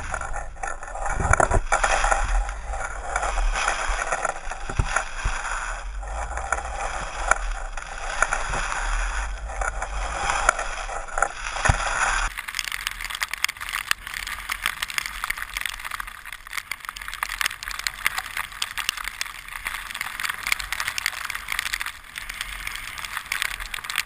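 Wind rushing over the microphone and skis sliding on snow during a downhill run. About halfway through the sound changes abruptly to a thinner, hissier rush.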